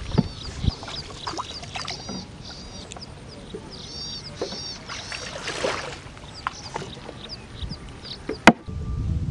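Small birds chirping over and over in short, high, arched calls, with scattered knocks and water sounds from a small boat moving through shallow water. There is a brief swish about five seconds in and one loud, sharp knock near the end.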